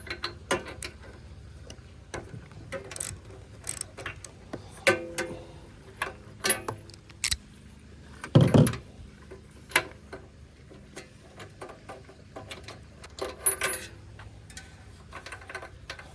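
Socket wrench clicking and clinking against metal as the old spark plug is loosened and taken out of a Honda small engine, with a louder knock about eight and a half seconds in.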